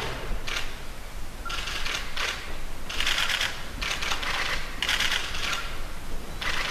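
Camera shutters clicking in rapid volleys, about half a dozen short bursts roughly a second apart.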